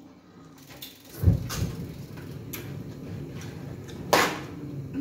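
A low thump on the table about a second in, then handling noise as a paper-wrapped gift is lifted, with a sharp rustle of the paper near the end.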